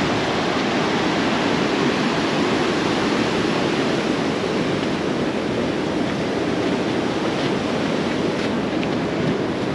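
Steady rushing of whitewater: the Merced River pouring over granite at the top of Nevada Fall.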